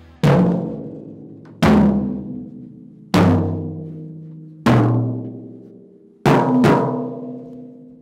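Five tuned toms (18, 16, 14, 13 and 12-inch, with coated Emperor batter heads) struck one at a time with a mallet to demonstrate their tuning. Each rings out at its own pitch and fades over about a second and a half, and the last is struck twice in quick succession.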